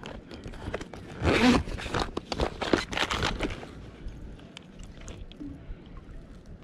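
Hands changing a fishing lure close to the microphone: a quick run of small clicks, scrapes and rustles of tackle being handled, thinning out to occasional soft ticks after about three and a half seconds.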